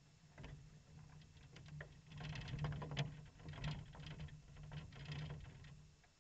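Faint knocks and clunks on a stopped racing kart as the driver climbs out of it, over a low engine hum that stops near the end.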